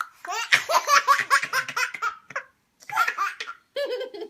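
Baby laughing: a fast run of short, high-pitched belly laughs, then two shorter bursts of laughter near the end.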